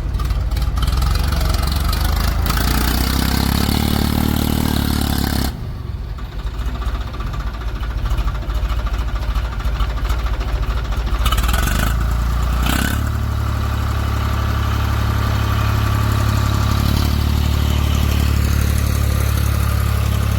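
Heavy diesel engine running steadily, its note changing suddenly about five and a half seconds in, with two short bursts of noise a little after the middle before it settles into a steady low running sound.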